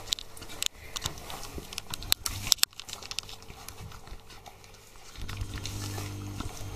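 Four-week-old Chesapeake Bay retriever puppies eating soft weaning food from a shared bowl: wet lapping and chewing with scattered sharp clicks, the loudest cluster about two and a half seconds in.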